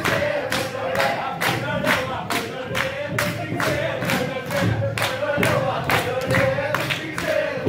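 Upbeat music with a fast, steady beat, about three to four beats a second, and a group of voices singing along.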